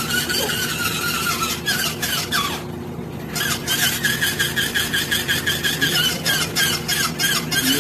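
Squeaky toy squeezed over and over, giving rapid, evenly repeated high squeaks with a short pause about three seconds in.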